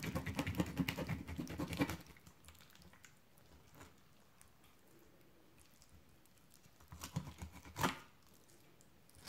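Kitchen knife sawing through the scales and skin of a whole gourami on a wooden cutting board: a rapid crackling rasp for about two seconds. A few sharp clicks follow near the end.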